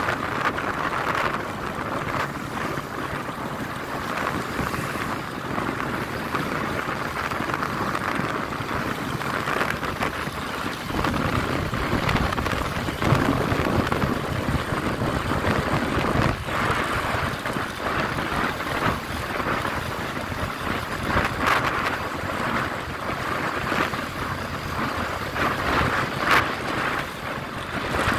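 Wind buffeting the microphone of a phone carried on a moving vehicle, an uneven rushing noise with the vehicle's running and road noise underneath.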